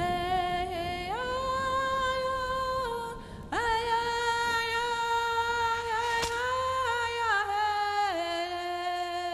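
Background music: a slow, wordless melody of long held notes that step gently up and down, in two phrases with a brief break about three seconds in.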